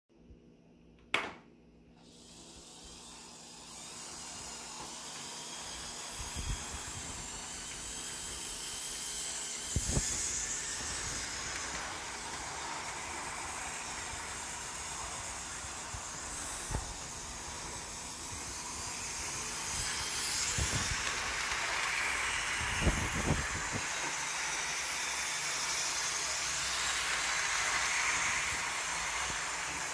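Snap-on toy electric train set running around its track: a steady whirring hiss of the small locomotive's motor and wheels that builds over the first few seconds and then holds, with a sharp click about a second in and a few brief knocks.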